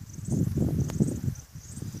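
Wind buffeting the microphone in low, uneven gusts, loudest in the first second, with insects chirping in short high bursts and a single sharp click just before the middle.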